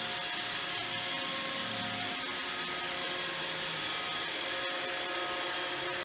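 iRobot Roomba 618 robot vacuum running on a hard laminate floor: a steady whir of its vacuum motor and brushes, with a faint whine over it.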